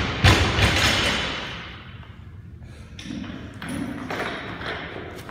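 Loaded barbell with bumper plates bouncing on a rubber gym floor after being dropped from overhead: a heavy thud about a quarter second in, then rattling and ringing of the bar and plates that dies away over a couple of seconds. Fainter thuds and clanks come later as a second lifter works another barbell.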